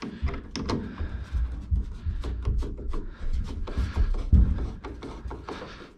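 Screw being turned by hand with a screwdriver to fasten a plastic condensate trap to a furnace: a run of irregular small clicks and scrapes over low rumbling bumps.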